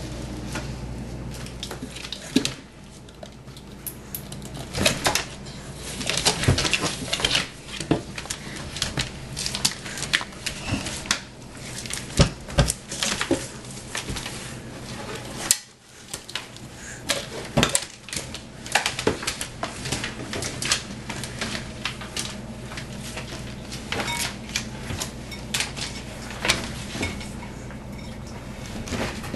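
Irregular clattering, knocks and scrapes of claws and bodies against a hard tile floor and glass, as two tegu lizards struggle while mating. A steady low hum sounds under the first couple of seconds.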